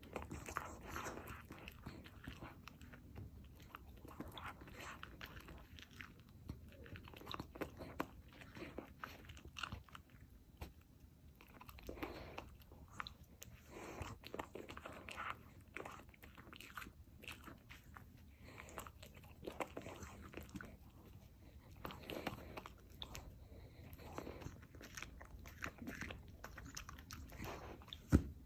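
Shiba Inu chewing and biting a small bread roll held between its paws, close up: irregular chewing and crunching throughout. One sharp, loud knock near the end.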